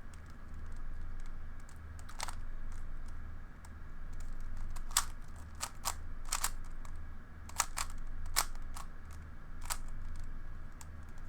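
Plastic Rubik's Cube being turned by hand during a solve: irregular sharp clicks and clacks as the layers snap round.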